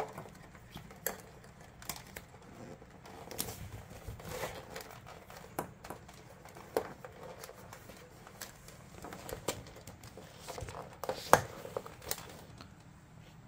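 Scattered small clicks, taps and rustles of hands pressing the new evaporator fan motor's wires into a slot in the refrigerator's plastic fan housing, with a few sharper plastic clicks near the end.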